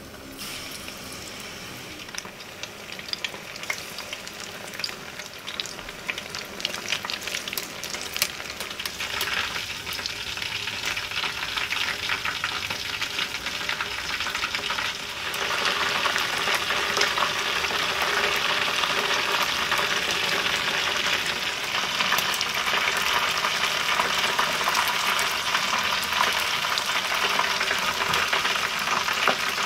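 Chicken pieces deep-frying in hot oil: a steady sizzle full of fine crackles, which grows louder about fifteen seconds in and then holds.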